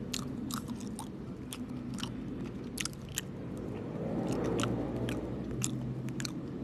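Close-miked chewing of home-made mochi ice cream: irregular sharp, sticky mouth clicks and smacks as the soft rice dough and ice cream are bitten and chewed, getting louder and fuller about four to five seconds in.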